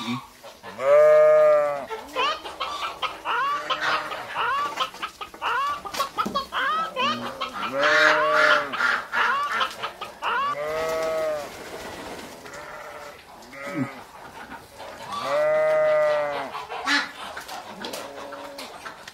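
Chicken and rooster calls: clucking with several long rising-and-falling crows, the loudest about a second in and again near the end.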